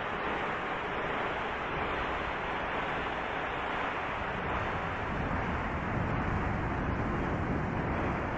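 Steady, muffled rushing noise of wind and rain picked up by the camera microphone, processed into an effect sound with the higher frequencies cut away.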